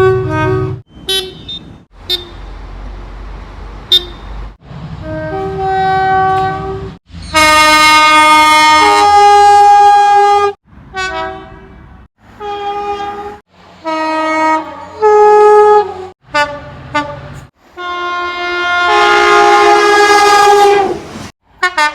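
A rapid run of British train horns, clip after clip with abrupt cuts between them: short and long blasts, some switching between two notes. Between blasts the low rumble of a passing train comes through.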